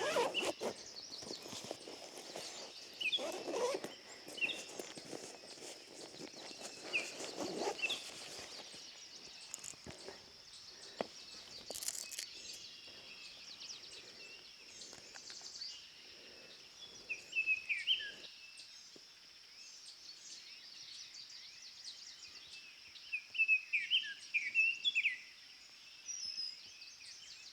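Small songbirds chirping outdoors in short groups of quick notes, several times, with a cluster near the end, over a steady high-pitched hiss. A few rustles and knocks in the first several seconds.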